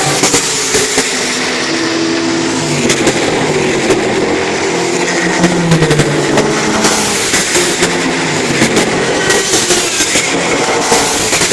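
American Le Mans Series race cars passing at speed, one after another, their engines revving with pitch rising and falling as they go by. The engine sound is loud throughout.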